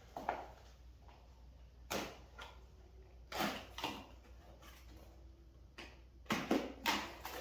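Boxes and packing being handled and opened: a scattering of short knocks and scrapes, busiest near the end.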